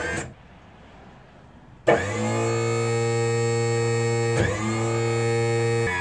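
Powergear hydraulic leveling system pump running under load with a steady, loud whine as it drives the jacks down. It starts abruptly about two seconds in, drops out for a moment with a click near the middle, then runs on. A short knock comes right at the start.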